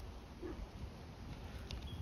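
Quiet outdoor ambience at a still pond: a low rumble on the microphone, with a few faint clicks and a brief high chirp near the end.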